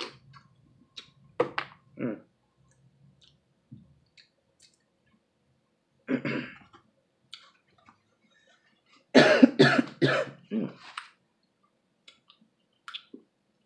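A woman coughing: a pair of coughs early on, a single one about six seconds in, then a fit of four or five coughs in quick succession. Faint clicks from food being handled come in between.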